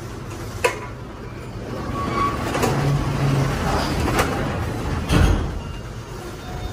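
A screwdriver working the screws on the stainless-steel top of a meat-slicing machine: a few sharp metallic clicks and taps, with a duller thump about five seconds in. Under it is a steady low mechanical rumble.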